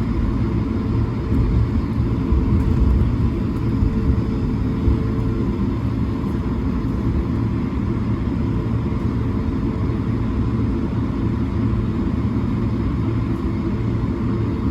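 Cabin noise inside an Airbus A220-300 at takeoff: a steady, loud low rumble and roar from its Pratt & Whitney PW1500G geared turbofans at takeoff thrust. A faint steady tone in the noise fades away about five seconds in.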